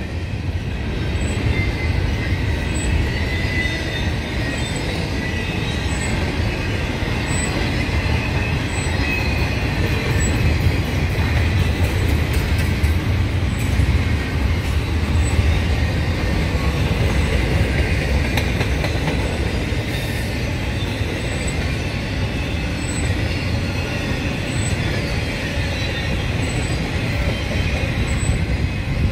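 Union Pacific double-stack intermodal freight train rolling past: a steady rumble of wheels on rail, with a thin, wavering high squeal of wheels running through it.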